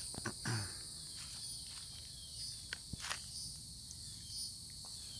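Steady, high-pitched chorus of insects such as crickets, with a few scattered footsteps and light clicks.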